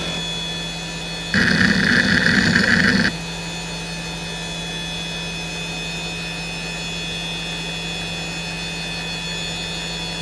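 Hitachi DK32CJ-36MC 10,000 rpm SCSI hard drive spinning with a steady whine from spindle bearings the owner calls significantly worn. About a second and a half in, a loud burst of rapid head seeking lasts nearly two seconds and then stops sharply, leaving only the steady spin during the benchmark's sequential reading.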